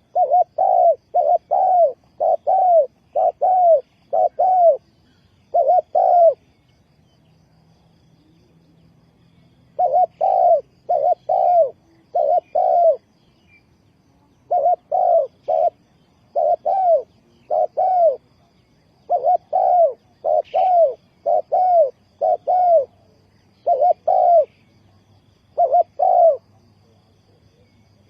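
Spotted dove cooing: repeated runs of short, arched coo notes, mostly in pairs, with a pause of about three seconds after the first run.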